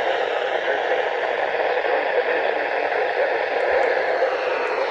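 Steady static hiss from a NOAA Weather Radio receiver, an even noise with no tone or voice on it.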